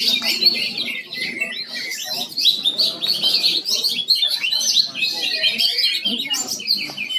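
Lovebird singing in a rapid, unbroken stream of high chirps and trills, the long 'kekek' trill that contest lovebirds are judged on.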